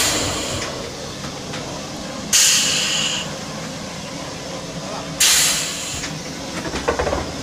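Compressed air exhausting from the pneumatic valves of a screen printing machine for 210-litre drums: two sudden bursts of hiss about three seconds apart, each fading within a second, over a steady low machine noise, with a short rattle near the end.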